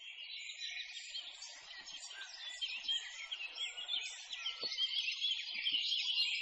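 Many small birds chirping and twittering together in a dense chorus of short, rapid notes. The chorus grows louder toward the end.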